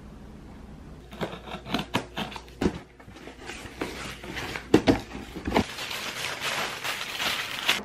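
Cardboard box flaps being opened and handled, with sharp knocks and rustles, then honeycomb kraft paper packing wrap crinkling continuously as it is pulled out of the box.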